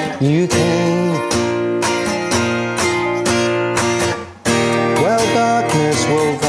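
Acoustic guitar played in a steady rhythm of chord strokes, with a brief break about four seconds in.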